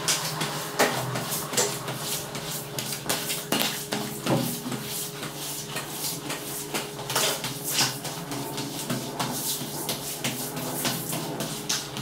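Irregular knocks and clatters, some close together and some a second or more apart, over a steady low machine hum.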